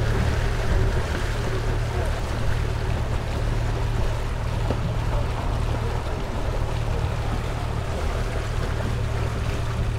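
Small open boat's motor running steadily under way, with a constant low hum. Water rushes along the hull and wind hits the microphone.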